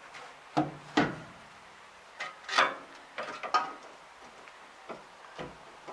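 Metal parts at a round baler's roller bearing mount being handled: a series of separate short clunks and scrapes as the bracket on the side plate is worked by hand, the loudest about a second in and again about two and a half seconds in.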